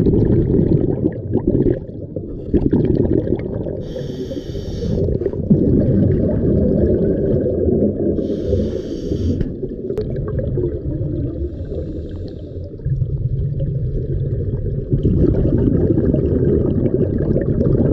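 Underwater breathing through a scuba regulator: a low bubbling rumble of exhaled air, broken twice by a hissing inhalation lasting about a second, about four and eight seconds in.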